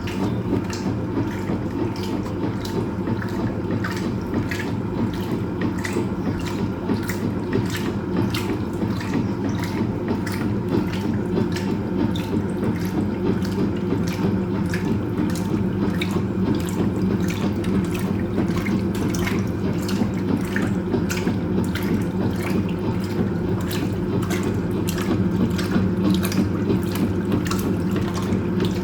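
Hoover Automatic 820 washing machine in its rinse cycle: water sloshes and splashes around the drum over the steady hum of the motor and agitator, the splashing growing busier toward the end.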